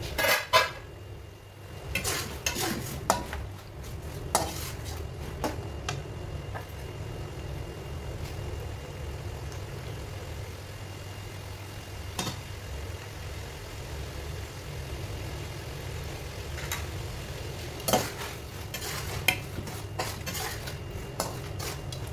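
Metal spatula clanking and scraping against an aluminium karahi as chunks of mutton are stirred and turned: a cluster of strokes at the start, a single clank about twelve seconds in, and another cluster near the end, over a steady low background noise.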